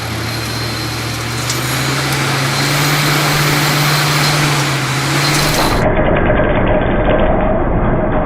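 CNC machine cutting metal with an indexable cutting tool: a steady noisy cutting sound over a low hum that rises slightly in pitch, changing abruptly after about six seconds to a duller cutting sound with a steady whine.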